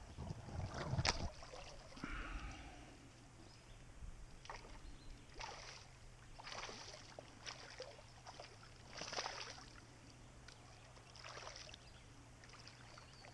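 A hooked fish splashing at the water's surface in short, scattered bursts beside a small inflatable pontoon boat, with water lapping. A knock and handling bumps against the boat sound about a second in.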